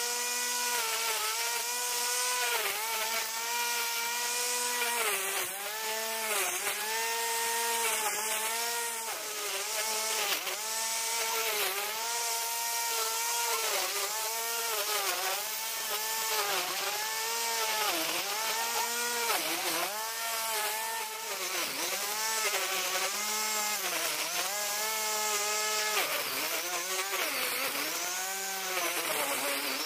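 Corded electric angle grinder driving a homemade grass-trimmer head, running with a high whine and a hiss of cutting. The pitch sags and recovers every second or two as the motor slows under the load of the grass it is cutting through.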